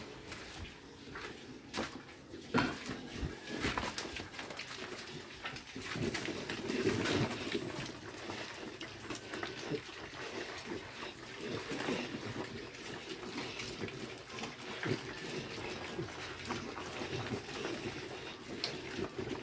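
A group of weaned piglets eating feed off a concrete floor: many small, irregular chewing crunches and snuffles. They are eating heartily.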